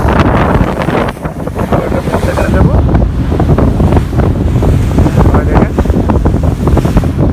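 Loud, gusting wind rumble on the microphone over the rush of water from a fishing boat running fast through rough, choppy sea.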